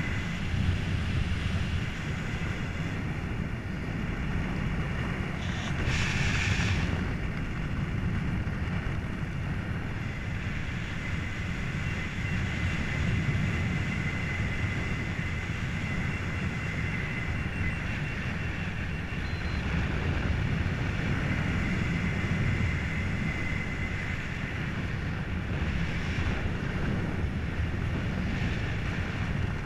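Wind rushing over an action camera's microphone during a descent under an open parachute: a steady low rumble with a brief brighter hiss about six seconds in.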